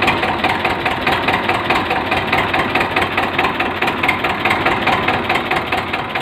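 Tractor diesel engine idling close by, with a steady, rapid knocking beat.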